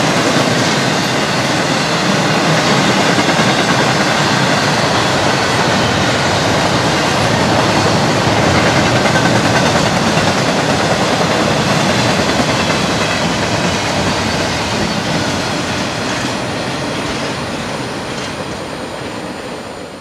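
Freight train cars, intermodal flatcars and double-stack container cars, rolling past: a steady, loud noise of steel wheels on the rails. It fades out over the last few seconds.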